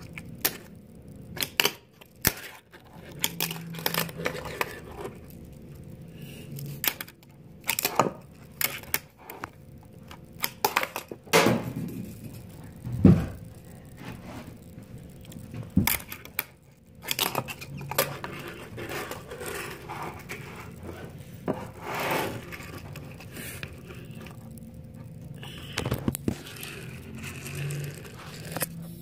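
Tech Deck fingerboard being flicked and landed on a hard counter: irregular sharp clacks of the small board, the loudest about halfway through, with scrapes of its wheels and deck in between.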